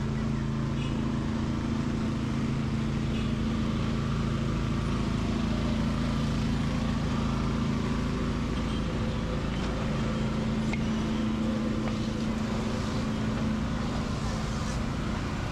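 A motor vehicle engine running steadily, a low hum, over general street noise.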